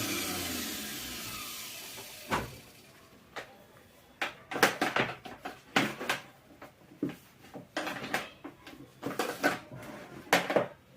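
Mixer grinder motor coasting down after being switched off, its hum falling in pitch and fading away over the first two seconds. Then a scattered series of sharp clicks and knocks.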